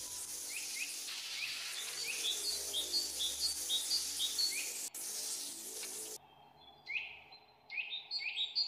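Small birds chirping in quick repeated short calls, a few a second, over a steady hiss; the hiss cuts off suddenly about six seconds in, the chirps pause, then resume more clearly near the end.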